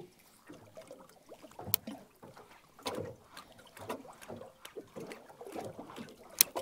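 Water lapping and slapping against the hull of a drifting boat, with two sharp clicks, one about a second and a half in and one near the end.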